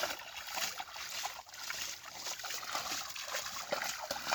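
Water trickling and splashing in a shallow field being bailed out, with many small irregular splashes.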